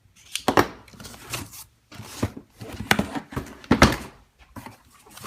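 A cardboard product box being opened and its packaging handled: several short knocks and thumps with scraping and rustling between them.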